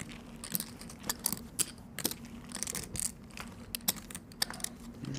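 Clay poker chips being handled at the table, clicking against each other in a scatter of quick, irregular clicks.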